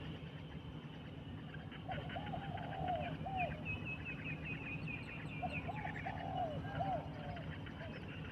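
A dove cooing in short looping phrases, twice, with a run of quick higher-pitched chirps from other birds between them over a steady low background hum.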